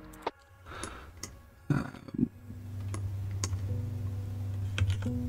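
Computer keyboard and mouse clicks, about half a dozen sharp ticks spread apart, over a faint steady low hum.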